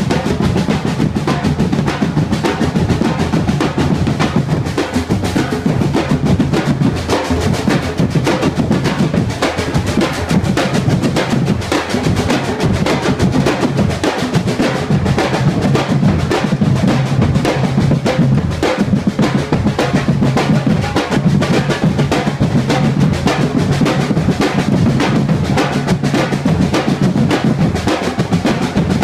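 Batucada drum ensemble playing a dense, continuous rhythm: many surdo bass drums struck with mallets and sticks, with a strong low drum boom under rapid strokes.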